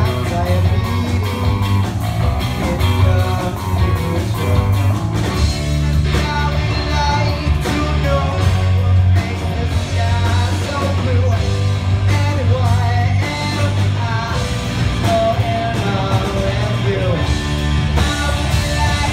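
A live rock band playing a ska-flavoured song: electric guitar, acoustic guitar, electric bass and keyboard over a drum kit, with a heavy, continuous bass line.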